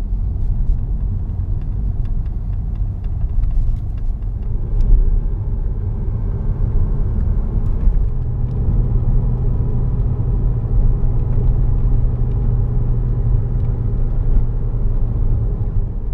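Porsche 987.1 Cayman S's flat-six engine and road noise while driving, a steady low rumble; the engine's tone holds more evenly from about halfway through.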